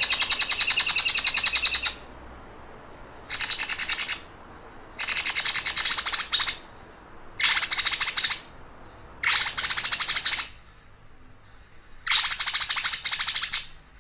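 A songbird giving rapid, even, machine-like trills, the 'sewing machine' (mesin jahit) song used as a masteran training call. There are six trills of about one to two seconds each, with short pauses between them.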